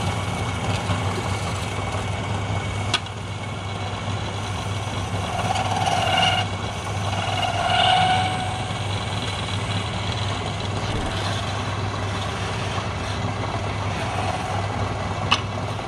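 Electric wood lathe running steadily with a low motor hum while a chisel cuts the spinning wooden workpiece. Two short whistling tones come about six and eight seconds in, and a sharp click near the start and another near the end.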